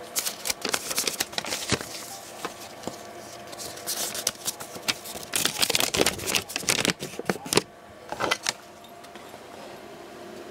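Crinkling and rustling of a toy's plastic packaging and paper instruction sheet being handled, in many quick crackles that die away after about eight seconds, leaving a faint steady hum.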